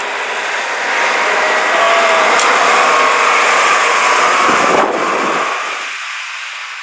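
A London Routemaster double-decker bus driving close by, its diesel engine running; the sound swells about a second in, holds, then fades away over the last second or so.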